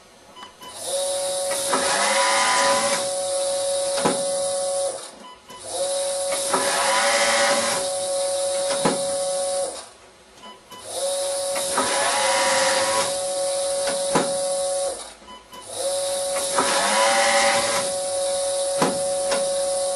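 Vacuumatic Tornado TCP1 disc-type paper counting machine running four count cycles of about four seconds each, counting stacks of 103 sheets. Each cycle has a steady whine with a high hiss, a rising note in its first half and a sharp click near its end, with short gaps between cycles.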